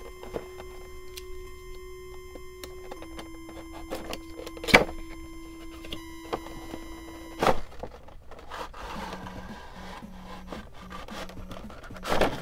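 Quiet background music of held notes that change pitch a couple of times, with three sharp handling sounds spaced a few seconds apart, the last near the end, from a cardboard toy box and its packaging being opened.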